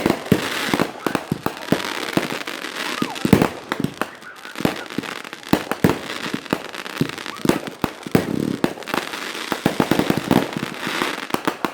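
Consumer fireworks going off: a rapid, irregular run of bangs with crackling between them.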